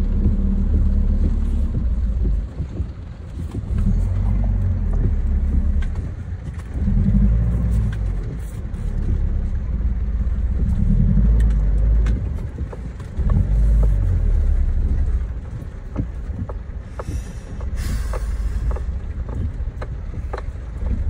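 Skoda Octavia II driving over a muddy dirt track, heard from inside the cabin. A low rumble of engine and tyres swells and eases every couple of seconds, with scattered knocks as the car rides the rough ground.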